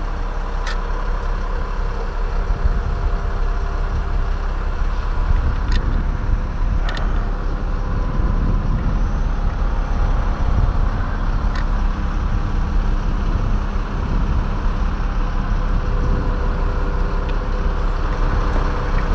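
A large engine running steadily, with a few sharp clicks and knocks over it.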